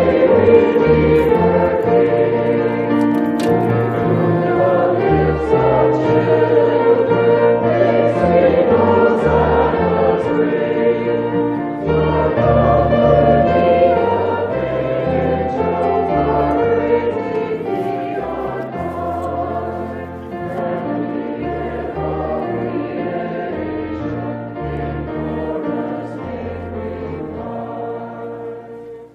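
Choir singing a slow, sustained chordal piece with instrumental accompaniment and a moving bass line; the music tapers off near the end.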